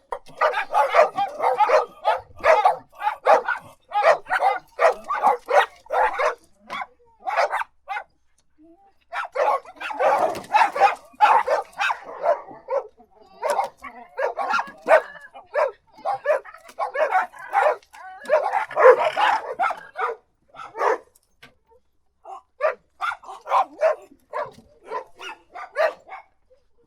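Dog barking in fast runs of short, sharp barks, with brief pauses about eight seconds in and again about twenty-one seconds in.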